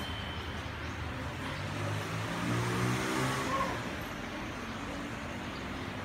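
A motor vehicle's engine passing by, rising to its loudest about halfway through and then fading, over a steady low hum.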